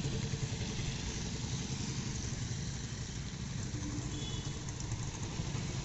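Vehicle engine running steadily as it travels along a street, a dense low rumble with road noise.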